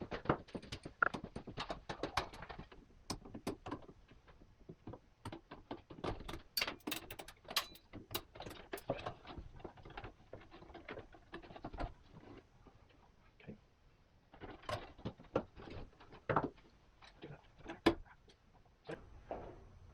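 Irregular sharp clicks, knocks and light metallic clatter from handling the garage door opener's rail and mounting hardware while working it free and into place.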